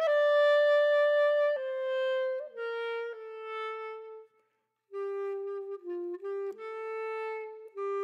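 Background music: a single woodwind plays a slow melody of held notes, one at a time, with a short break about four and a half seconds in.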